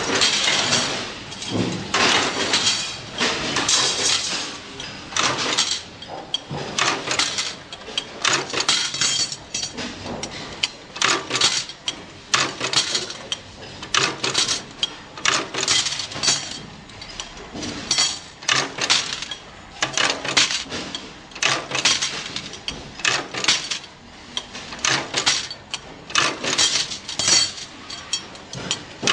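Bench riveting presses clanking over and over as they rivet steel ball-bearing drawer-slide rails, with metal-on-metal clinks as rails and small parts are handled. The strikes come irregularly, about one or two a second.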